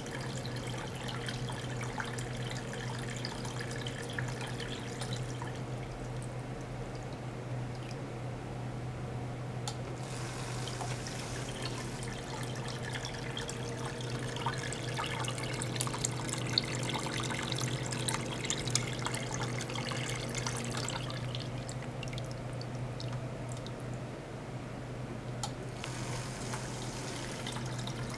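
Water pumped through plastic tubing splashes and trickles into a plastic tub, over the steady low hum of the small circulation pump. Twice, for a few seconds each, the splashing thins out while the hum carries on.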